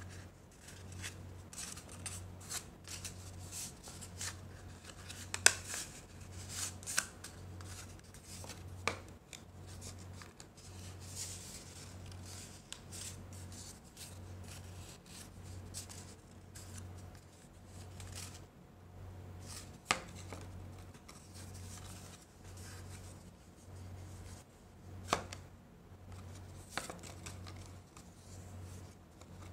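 Sheet of paper rolled into a tube being handled, creased and pressed into a heart shape: scattered rustling and crinkling with a few sharp clicks. A low hum pulsing about once a second runs underneath.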